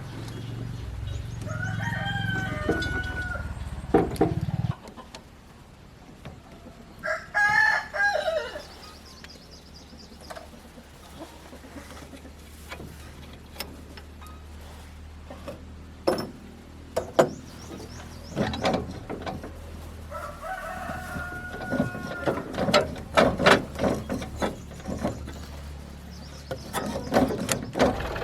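Rooster crowing three times, each call about a second and a half long. A low engine hum runs under the first crow and stops about five seconds in. Scattered sharp knocks and clicks follow in the second half.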